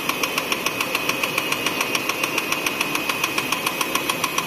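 High-speed label die-cutting machine running, its cutting press stamping in a rapid, even beat of several strokes a second over a steady mechanical hum.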